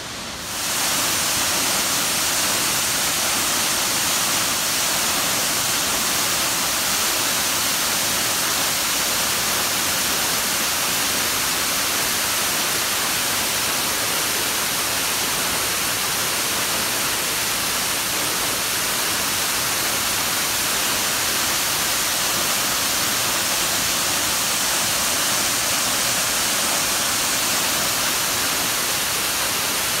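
Waterfall pouring over a rock ledge: a steady, loud rush of falling water that comes in about half a second in.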